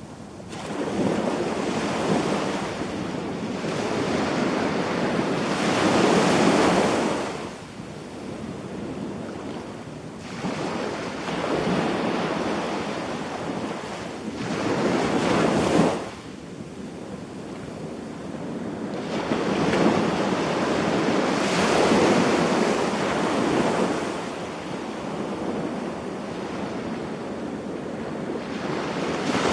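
Waves breaking and washing up a beach, the rush of each one swelling and fading away about every eight to nine seconds.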